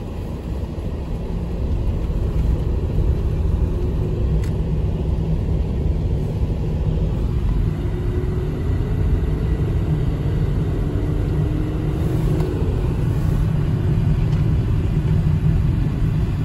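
Steady low rumble of road noise inside a moving car's cabin, its tyres running on a snow-covered highway, growing louder about two seconds in.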